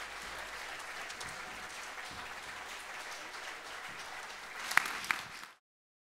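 Audience applauding steadily, with two sharp, louder sounds standing out near the end. The applause cuts off suddenly just before the end.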